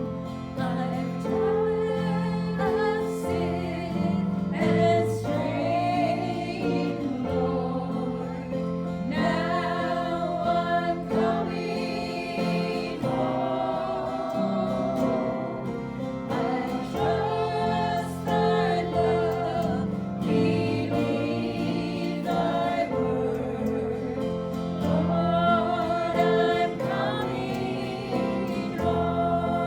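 Gospel song sung by voices over steady instrumental accompaniment.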